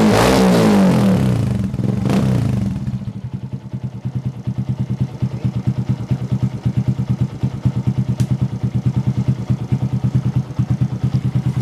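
Suzuki Shogun Pro 125 single-cylinder four-stroke engine breathing through a NOB1 aftermarket exhaust pipe: revved up twice, then settling around three seconds in to an idle with a steady, even pulse from the pipe.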